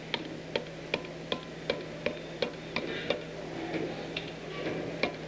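Steady, regular hammer taps, about three a second, as an aluminum flange is hammered over a forming block clamped in a vise.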